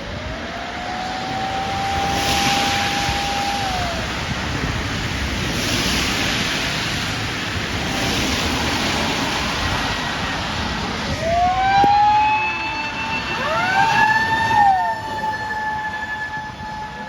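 Fire engine motor siren winding up to a steady wail, holding for about three seconds, then winding down. From about ten seconds in, sirens sound again: sweeping tones and a motor siren winding up to a held wail at two pitches. Underneath runs a steady hiss of tyres and spray on a wet road.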